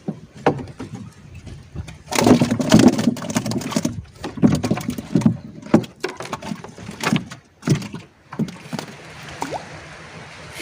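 Water splashing and knocking against a small boat, irregular and heaviest about two to four seconds in, followed by scattered sharp knocks, as a hooked fish thrashes and is brought aboard.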